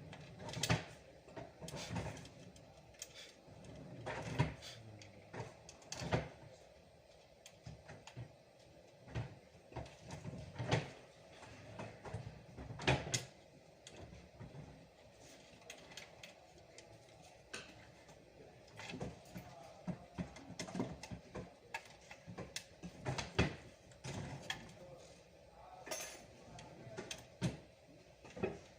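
Irregular clicks, knocks and rattles of computer hardware being handled, a dozen or more sharp knocks scattered through, as a desktop PC is worked on during a motherboard replacement.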